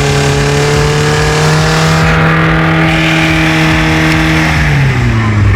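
Chevrolet Chevette engine held at high revs for a burnout, its pitch steady and creeping slightly upward, with a loud hiss over it. About four and a half seconds in, the revs fall away.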